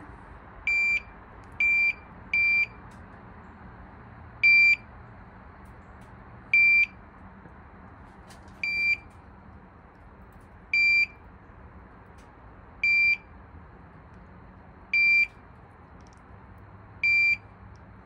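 TOPTES CT-580 handheld carbon monoxide meter sounding its alarm in short, high beeps: three in quick succession about a second in, then one about every two seconds. The alarm means the carbon monoxide from the small fire is above the meter's threshold, in the yellow caution range.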